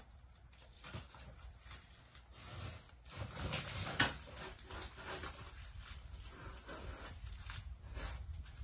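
Cat licking and chewing a soft treat from its food bowl: soft irregular wet clicks, with one sharp clink against the bowl about four seconds in. A steady high-pitched insect chirr runs underneath.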